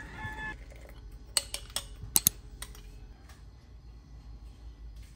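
The tail of a rooster's crow, ending about half a second in, then about half a dozen sharp clicks over about a second, starting about a second and a half in.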